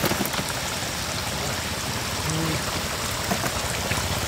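Shallow muddy floodwater running and trickling steadily over a mudflat, with a few sharp knocks near the start.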